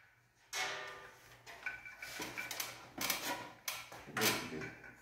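Knocks and clinks of the split air conditioner's metal wall-mounting plate and tools being handled during fitting, about half a dozen irregular hits, some with a short metallic ring.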